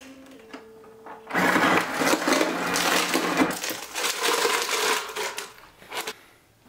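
Refrigerator door ice dispenser running: a brief motor hum, then ice clattering down the chute into a plastic cup for about four seconds, and a click near the end.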